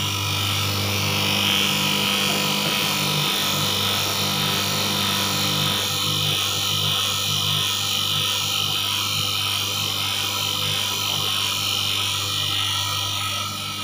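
Single-phase capacitor-start induction motor running freely on mains power, with its shaft spinning: a steady low electrical hum under an even whir.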